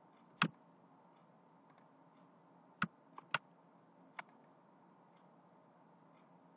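Five isolated sharp clicks from a computer mouse and keyboard: one about half a second in, three close together around three seconds in, and one more about four seconds in.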